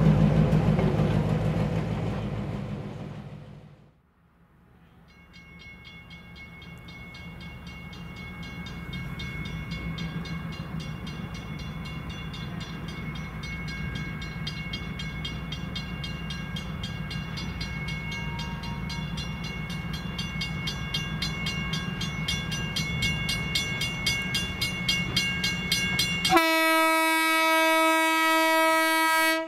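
A passing passenger train's rumble fades away over the first four seconds. Then a Budd RDC diesel railcar approaches, its engine running with a steady hum that slowly grows louder, and near the end it sounds one long horn blast.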